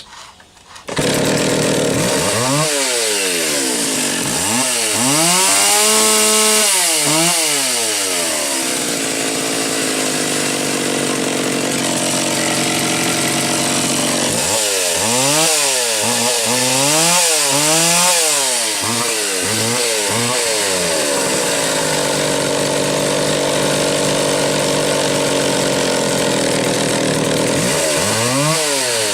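McCulloch Timber Bear two-stroke chainsaw running on a test run after its carburetor was cleaned and its fuel hose replaced. It idles steadily and is revved up and down three times: two long spells and a short one near the end.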